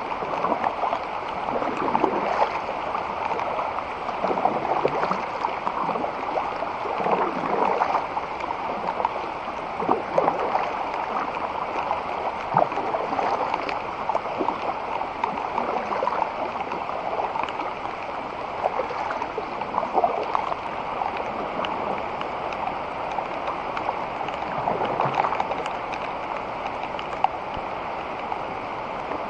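Creek water gurgling and splashing around a kayak under way, swelling every two to three seconds with the paddle strokes.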